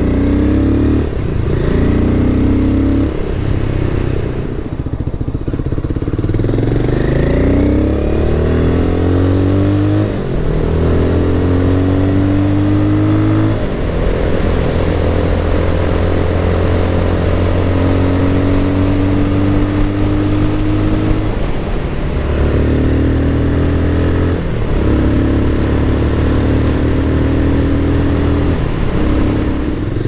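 Mash Dirt Track 650's 657cc air-cooled single-cylinder engine and exhaust under way: revs climb and drop back several times with gear changes in the first dozen seconds, then hold fairly steady at cruising speed, with a couple more shifts later on.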